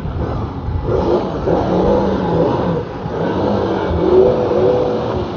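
Jet ski engine running and revving, its pitch rising and falling repeatedly over a steady rush of wind and water.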